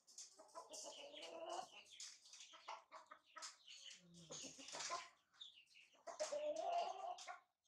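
Chickens clucking, a few short pitched calls with some high chirps in between.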